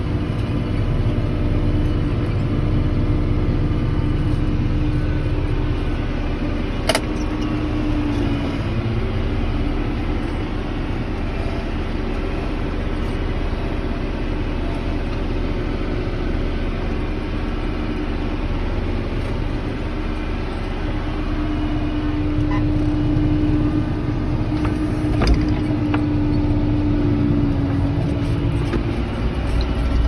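John Deere tractor engine running steadily under ploughing load, heard from inside the cab as a low drone. A whine rides on it and dips in pitch twice. There is a sharp click about seven seconds in and another near the end.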